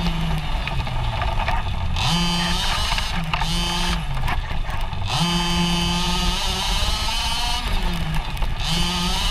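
26cc two-stroke gas engine of a Losi 5ive T 1/5-scale RC truck, heard from on board while driving, revving up and easing off about five times as the throttle is worked.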